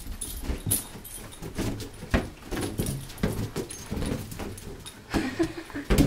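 A small dog leaping at and batting rubber party balloons: hollow balloon thumps and paw scrabbles, with the dog's collar tags jingling. The busiest burst of knocks comes near the end.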